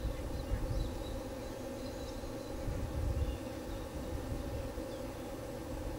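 Outdoor background noise: a steady low drone under uneven gusts of low rumble on the microphone, with a few faint high chirps.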